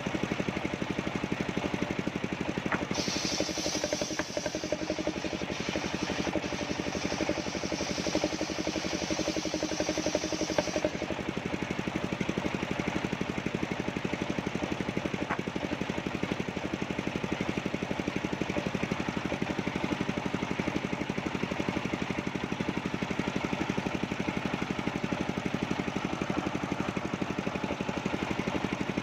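Engine of a portable circular sawmill running steadily with a fast, even chug. From about three to eleven seconds in, a higher hiss joins it, then the engine runs on alone.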